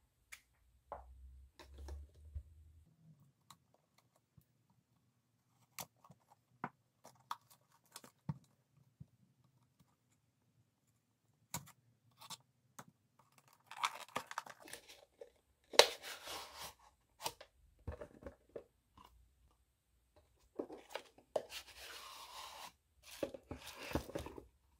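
Cardboard pen boxes being handled and opened by hand. Scattered light taps and clicks come first. In the second half there are several bursts of scraping and tearing as a craft knife cuts the box's seal and a box is pulled out of its paper outer box.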